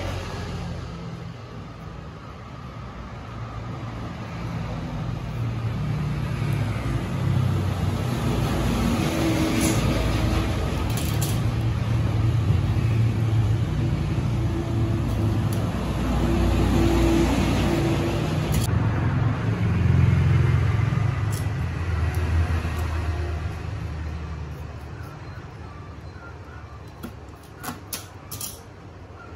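A motor vehicle engine runs with a low rumble that swells over several seconds and fades again. A few short clicks come near the end.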